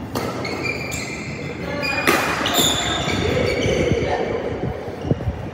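Badminton rally: sharp racket strikes on a shuttlecock, the loudest about two seconds in, echoing in a large hall. Sneakers squeak on the court floor, and a player's voice follows once play stops.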